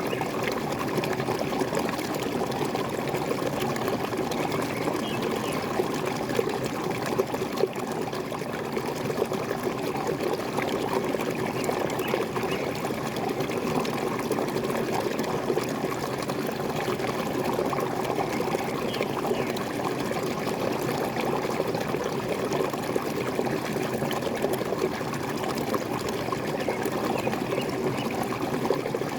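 Small waterfall, water falling and gurgling in a steady, unbroken splash.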